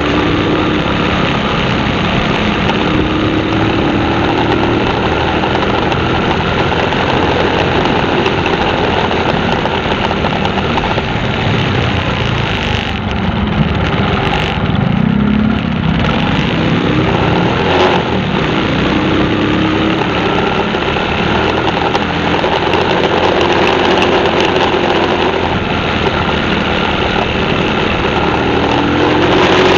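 Vehicle engine running under a steady, loud mechanical rumble, its pitch sliding up and down a few times as the revs change.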